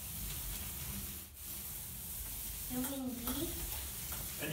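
Thick-nap paint roller loaded with wet paint, rolling across a drywall wall in a W pattern. It makes a steady rolling rub, with a short break about a second in as the stroke changes direction.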